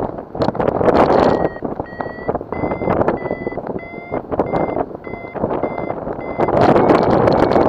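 Paragliding variometer beeping its climb tone, short high beeps about two a second: the glider is rising in a thermal. Heavy wind noise on the microphone runs underneath, loudest at the start and again near the end.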